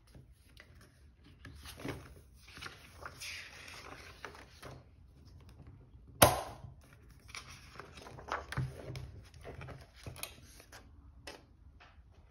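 Paper pages of a ring binder rustling as they are turned and handled, with a sharp metal snap about six seconds in as the binder's rings are pulled open. Soft paper rustle follows as a sheet is lifted out.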